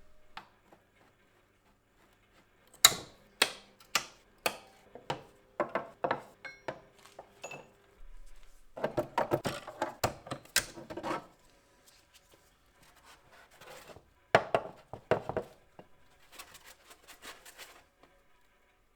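Hard objects knocking and clattering as they are handled, in several bouts with pauses. The bouts are a string of sharp knocks a few seconds in, a dense clatter in the middle, and more knocks later, followed by a light rapid ticking near the end.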